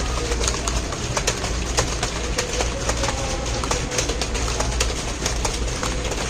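Computer keyboard being typed on: irregular key clicks, several a second, over a steady low hum.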